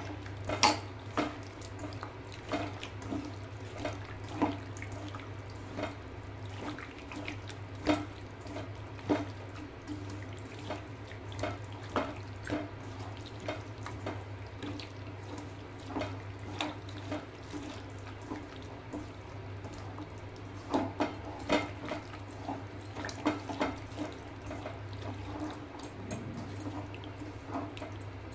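Raw chicken being mixed by hand into a yogurt-and-spice marinade in a metal bowl: irregular wet squelches and small clicks against the bowl, over a steady low hum.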